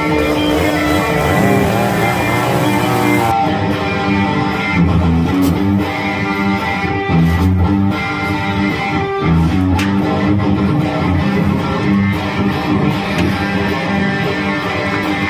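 Background music led by strummed electric guitar. For about the first three seconds a chainsaw engine runs underneath it, its pitch rising and falling as it cuts, before it cuts out.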